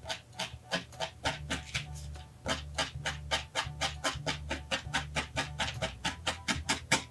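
A felting needle stabbing rapidly through wool roving into a foam pad, a fast run of short crunchy pricks at about five a second, over quiet background music.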